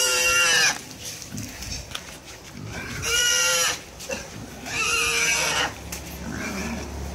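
A wild boar, legs tied, squealing in distress as it is held down: three long, high squeals, the first breaking off just under a second in, the others about three and five seconds in.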